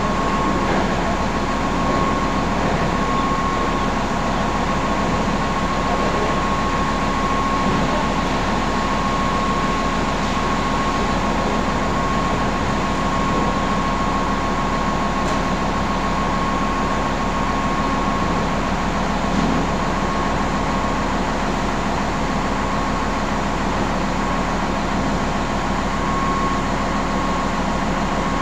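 Steady drone of industrial machinery, with a steady high whine running through it.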